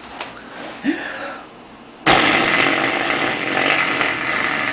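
A long raspberry, lips blown together to make a fart sound. It starts suddenly about two seconds in and lasts over two seconds, after a brief small vocal sound near the start.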